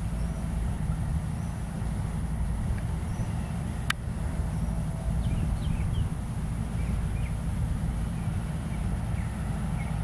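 Steady low outdoor rumble with a thin high hiss over it, one sharp click about four seconds in, and scattered faint short chirps.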